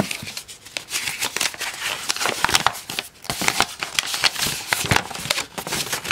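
A folded paper sheet being pulled out of a plastic zip bag and unfolded by hand, with dense rustling and crackling made up of many small, sharp crinkles.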